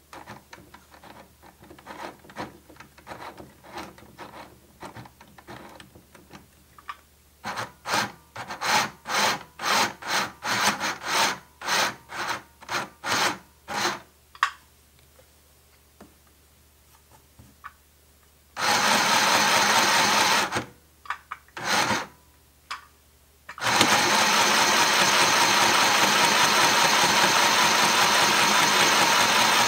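Cheap mini sewing machine stitching a knit undershirt hem. Its motor and needle run in two steady bursts at one fixed speed, because the foot pedal is only on-off: a run of about two seconds, two brief blips, then a longer run of about six seconds near the end. Before that comes a run of light knocks, about two a second.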